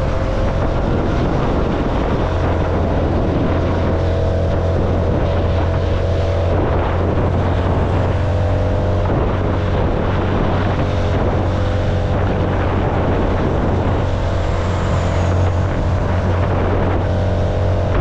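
CFMoto motorcycle engine running steadily under way, its pitch shifting every few seconds as the throttle changes, with wind rushing over the microphone.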